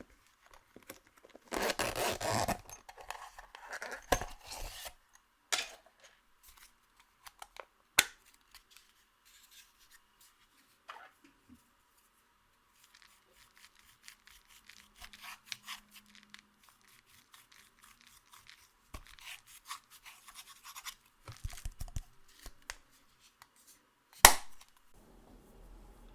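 Close-up crackling and scraping from makeup and slime being worked by hand, loudest for a few seconds near the start, with scattered small clicks and two sharp clicks, the louder one near the end.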